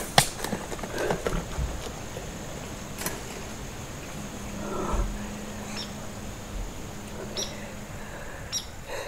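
A sharp crack right at the start as the arrow from a bow shot strikes the deer, then scattered thumps and rustling as the hit buck runs off through the cover, over a faint steady high hiss.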